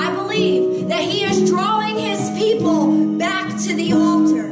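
A woman singing a slow worship song over held guitar chords.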